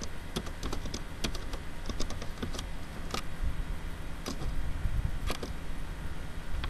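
Irregular clicking of a computer keyboard and mouse, several clicks a second at first and sparser later, over a low steady hum.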